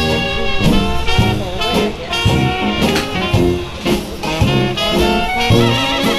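Background music: upbeat jazz with brass and a steady swing beat.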